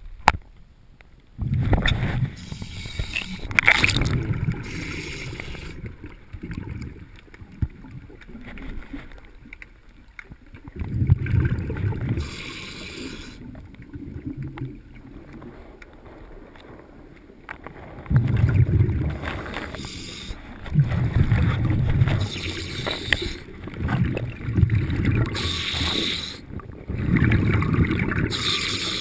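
Diver breathing through a regulator underwater: slow, irregular breaths, each a hiss of air followed by a rumbling rush of exhaled bubbles.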